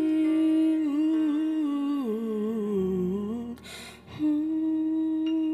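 A woman singing wordlessly into a microphone, humming long held notes: the melody dips down and comes back up in the middle, she takes a quick breath about four seconds in, then holds another long steady note.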